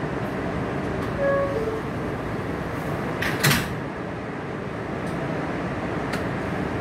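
Inside an R142A subway car: the steady rumble of the car, a two-note falling door chime about a second in, then the sliding doors banging shut about halfway through, with a couple of small clicks after.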